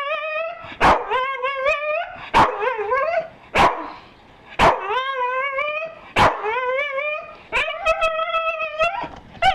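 Staffordshire Bull Terrier barking and 'talking': about six times, a short sharp bark runs straight into a drawn-out, wavering, howl-like yowl.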